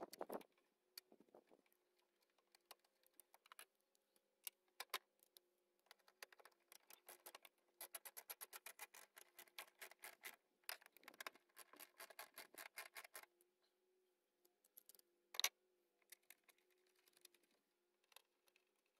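Faint clicking of a ratchet wrench being worked: two runs of quick, even clicks in the middle, with scattered clicks and knocks of parts being handled, and one sharper click a little later.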